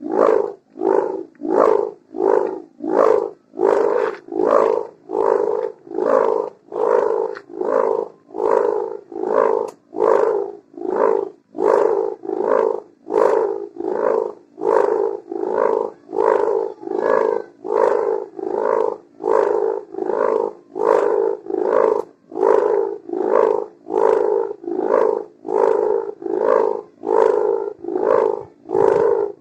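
Sendaren kite hummer made of a mica plastic strip joined with gift ribbon, buzzing with a snoring drone that swells and fades in a steady rhythm, about three pulses every two seconds.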